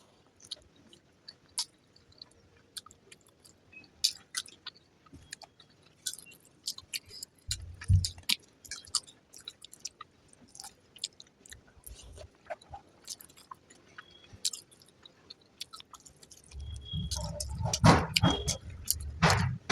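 A person chewing mouthfuls of fried rice and egg curry close to the microphone, with many soft wet clicks and smacks. There is a dull thump about eight seconds in and a louder stretch of noise near the end.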